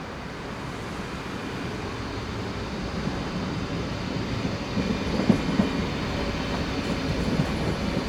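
A DB Class 425/426 electric multiple unit moving along the track, its sound growing louder, with wheels clattering over rail joints from about five seconds in.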